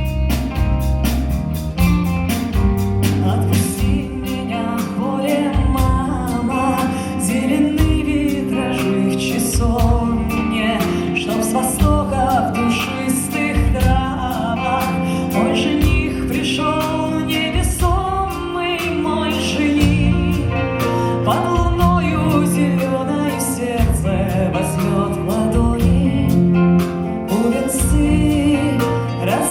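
Folk-rock band playing live: an instrumental passage between sung verses, a melodic lead line over guitar, bass and drums.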